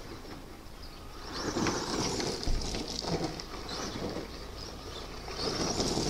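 Axial SCX10 Honcho RC truck driven hard on a Carson CE-4 electric motor: the motor and gears whine in throttle bursts while the tyres crunch and throw gravel. The bursts swell about a second and a half in and again near the end as it climbs the pile.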